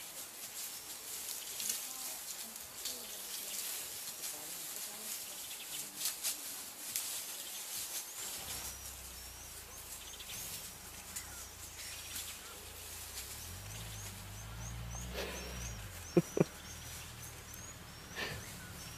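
Outdoor wildlife ambience: a steady hiss with a string of faint, short high chirps in the middle and a low drone coming in partway through, and two short, sharp pitched calls about sixteen seconds in.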